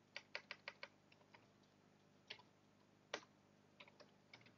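Faint typing on a computer keyboard: a quick run of about six keystrokes in the first second, then scattered single keys, one louder about three seconds in, and a few more near the end.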